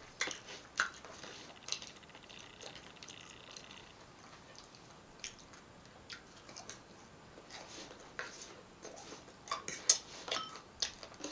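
Close-miked chewing and wet mouth sounds of someone eating fast food, with scattered sharp clicks and taps.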